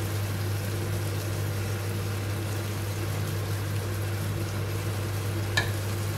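Steady low hum and hiss from a pot of vegetables in tomato sauce simmering on an induction hob, with one light click about five and a half seconds in.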